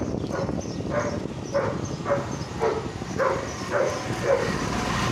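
A dog barking repeatedly, about two short barks a second, over the steady low rumble of a moving motorcycle and wind.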